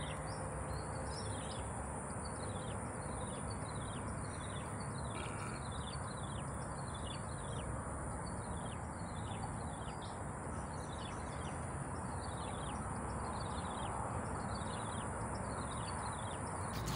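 Birds calling in a long series of short descending chirps, about two a second, over a steady high-pitched insect drone and a low background rumble. The insect drone cuts off near the end.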